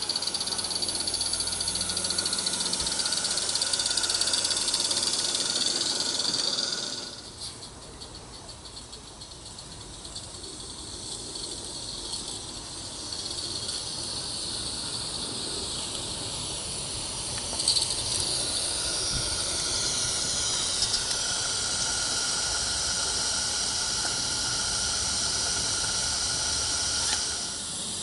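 Roundhouse Lady Anne live-steam garden-railway locomotive running with its train: a steady hiss of steam with some rattle from the track. The sound drops away about seven seconds in and builds back up gradually over the second half, with a couple of sharp clicks midway.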